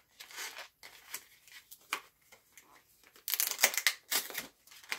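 Dessert-cup packaging being pulled and torn open by hand, crinkling and rustling, with a denser, louder spell of tearing about three and a half seconds in.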